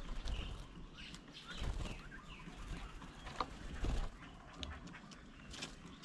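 Birds at a feeding table: short chirps and calls, with scattered sharp clicks and a few low thumps.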